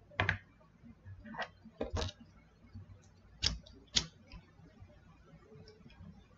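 A few sharp clicks and taps from a lighter being flicked to light a small pipe and from the pipe being handled, the two loudest clicks a half second apart about three and a half seconds in.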